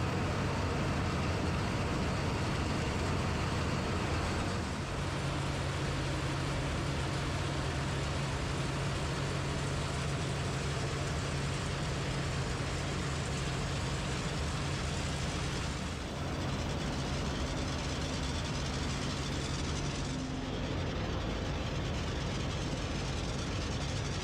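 Heavy farm machinery running steadily, a tractor and potato harvester at work: a steady low engine hum under a constant dense mechanical noise. The sound dips briefly about 4.5 and 16 seconds in.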